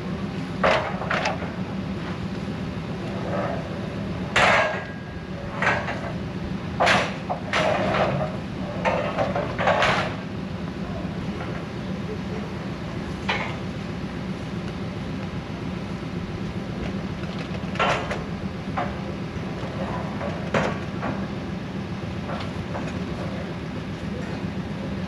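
Sharp knocks and clanks of hard objects being set down and shifted as a load goes onto a trailer, bunched in the first ten seconds and sparser after. A steady low hum runs underneath.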